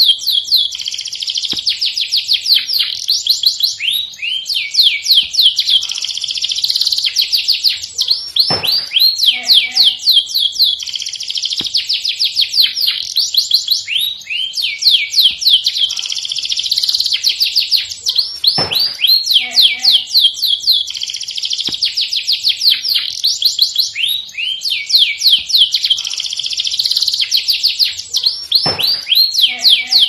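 Domestic canary singing continuously: long, fast trills of rapid downward-sweeping high notes, the same run of phrases coming round about every ten seconds.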